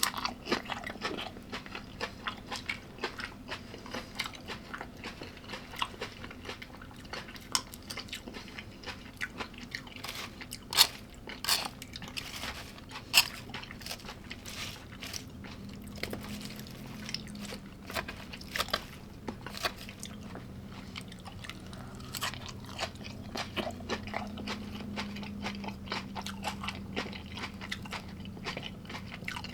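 A person chewing and crunching food, with many irregular crisp bites. Two bites about halfway through are much louder than the rest.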